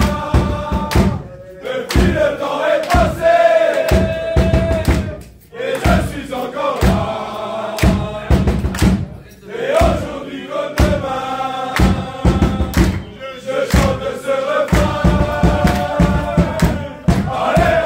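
A group of men chanting and singing together in unison, clapping and thumping along in time, in phrases with short breaks between them.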